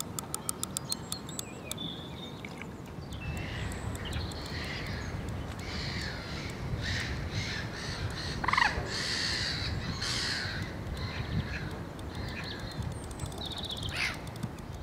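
Rapid ticking of a fixed-spool fishing reel's drag giving line to a hooked fish, about a second long at the start. Then crows cawing several times, with a few falling calls.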